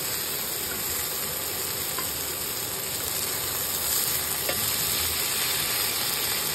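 Food sizzling steadily in a hot pan, with a few faint ticks.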